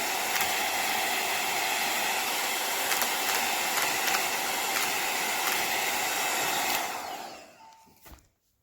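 Hot air styler (rotating blow-dryer brush) running steadily, blowing air with a high motor whine. It is switched off about seven seconds in and the sound dies away within about half a second. A small click follows near the end.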